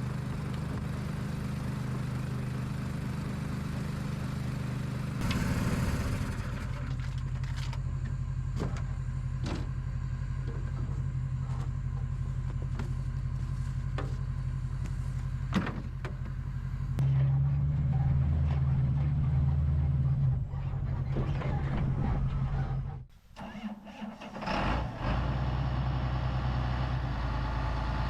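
Tractor engine running steadily, its sound shifting a few times and dropping out briefly about two-thirds of the way through.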